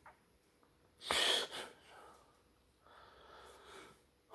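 A person's sharp, noisy breath about a second in, then a softer breath out near the end.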